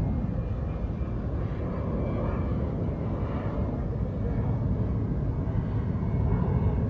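Steady low rumble of road vehicles passing.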